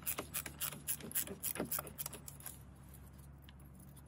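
Rapid run of small clicks, about five a second, from a tool working loose the terminal of a power wire in a pickup's engine bay. The clicking stops a little past halfway.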